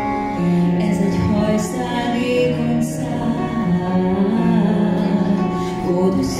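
A woman singing long, held notes of a slow ballad into a microphone over instrumental accompaniment.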